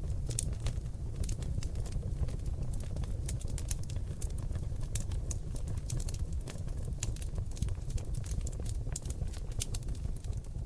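Seasoned oak logs burning in a fireplace: a steady low rumble of flames under frequent, irregular crackles and sharp pops.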